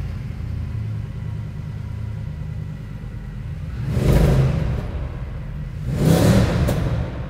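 Mercedes C63 AMG's 6.2-litre V8 idling just after start-up, then revved twice, about four and six seconds in, each time rising and falling back to idle.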